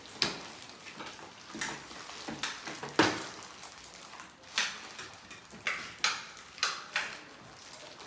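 Irregular short clinks and knocks of hard objects being handled, about nine in all, the loudest about three seconds in and the later ones higher-pitched.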